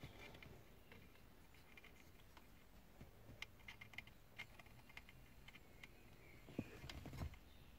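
Near silence with faint, scattered small clicks and rustles from hands handling and joining thin speaker wires, and a couple of soft knocks near the end.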